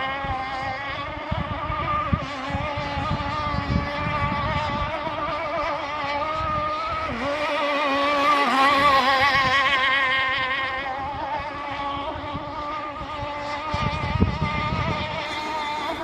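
Radio-controlled speedboat's motor running flat out with a steady pitched whine that wavers continually as the hull skips across the chop, growing louder about halfway through as the boat passes. A gusty low rumble sits underneath.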